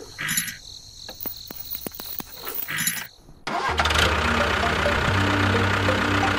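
A few light clicks and taps as a wire chain hook is fastened to a toy tractor. About halfway through, a tractor engine sound starts abruptly and runs steadily.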